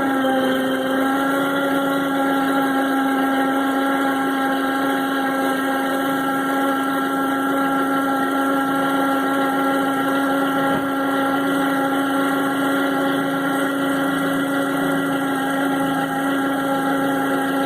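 2009 Toyota RAV4's alternator whining steadily, several tones stacked together over the idling engine, settling slightly lower in pitch right at the start. The whine is the sign of failing alternator internals, likely diodes or brushes.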